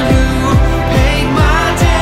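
Contemporary worship band music: a singer carrying the melody over a steady kick-drum beat and sustained instruments.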